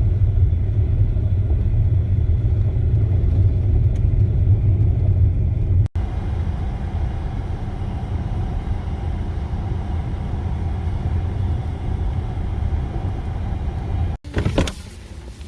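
Steady low road rumble of a car driving, broken by two abrupt cuts, one about six seconds in and one near the end. After the second cut it gives way to wind buffeting the microphone.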